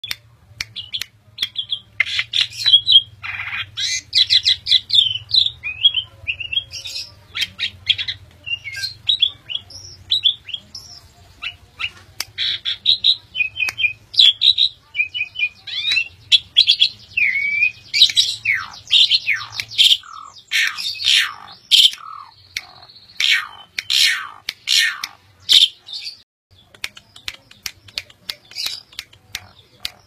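A caged Javan pied starling (jalak suren) singing a long, varied song of chirps, squawks and whistles, with a run of quick falling whistles in the second half.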